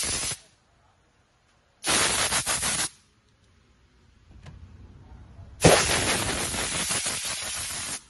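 Compressed-air blow gun blasting air through a removed car air-conditioning evaporator core to clean it, in three hissing bursts: one ending about half a second in, a shorter one a couple of seconds in, and a longer one from about halfway to the end.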